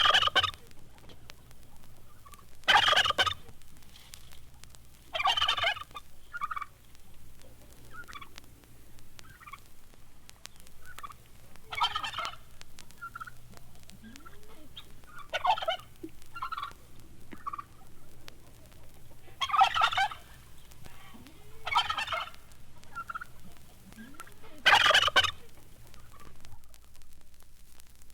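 Turkeys gobbling: about eight loud, rattling gobbles spread irregularly through the passage, with short, softer calls in between, over a faint low hum.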